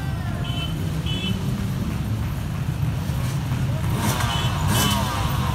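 Many dirt bike engines rolling past at low revs make a dense, steady rumble. Some of them rev up about four seconds in. A repeating electronic beep of two short high tones sounds over it.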